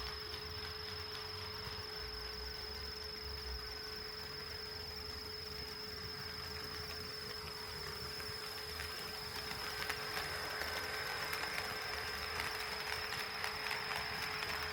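HO scale model train running on the track: a steady high whine with a rolling rattle and fine clicking from the wheels, growing louder about ten seconds in as the train comes closer.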